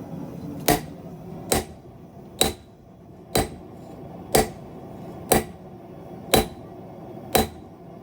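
Hammer striking red-hot high-carbon steel on an anvil, eight heavy blows about a second apart, each with a short metallic ring: hand-forging a knife blade from an old steel file.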